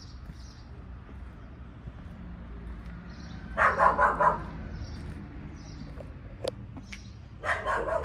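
A dog barks: a quick run of barks about three and a half seconds in, and another near the end, over a low steady background hum.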